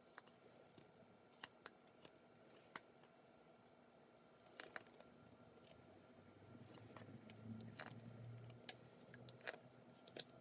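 Faint, scattered snicks of a whittling knife slicing thin chips off a wooden carving, a dozen or so short sharp cuts at uneven intervals. A faint low hum comes up about six seconds in and fades near the end.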